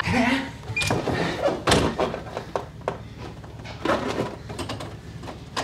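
A few thuds and knocks against a door, spaced out, the loudest about a second and a half in.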